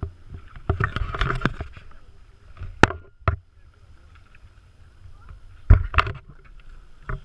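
Kayak paddling: paddle strokes splashing and knocking against the kayak in irregular bursts, with a cluster about a second in, two sharp knocks near three seconds and a loud knock near six seconds.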